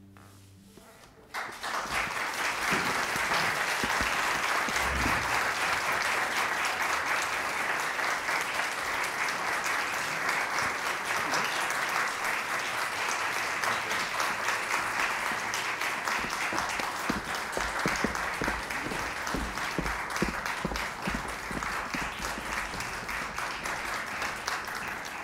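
A concert audience applauding, breaking out about a second in after a brief hush and carrying on steadily.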